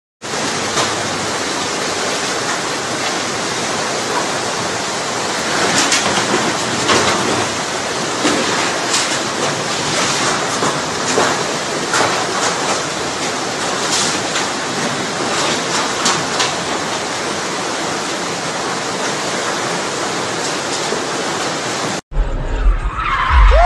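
Floodwater rushing in a torrent through a street, a steady roar with scattered sharp knocks. Near the end it cuts abruptly to a different outdoor scene with voices and a sliding pitched tone.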